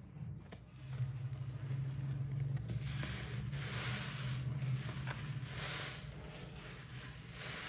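Natural sea sponges squeezed by a gloved hand in a bucket of sudsy water: wet squelching and sloshing with foam fizzing, in several squeezes about a second apart from about three seconds in.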